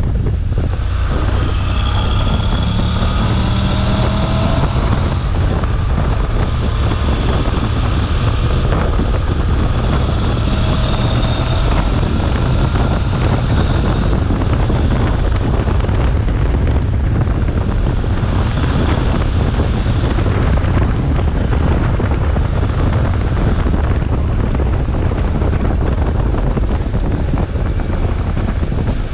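Heavy wind rumble on the microphone of a motorcycle at highway speed, with the engine's drone underneath, its pitch gliding up and down with the throttle.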